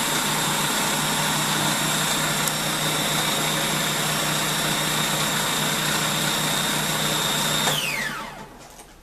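Countertop food processor blending chopped garlic with water, its motor running steadily with a high whine. About three-quarters of the way through it is switched off, and the whine falls in pitch as the blade spins down to a stop.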